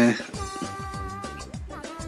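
Background music under a pause in the narration: steady held tones over a deep bass thud that falls in pitch, repeating about four times a second.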